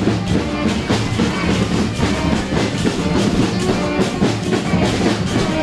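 Band music with a driving drum and percussion beat.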